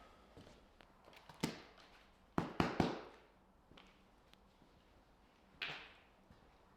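Scattered knocks and clatters: a single sharp knock about one and a half seconds in, three quick knocks a second later, and a softer knock near the end.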